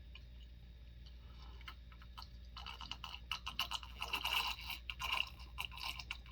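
Close-up chewing of food, wet and crunchy. It is quiet at first and becomes a busy run of clicky mouth sounds from about two and a half seconds in.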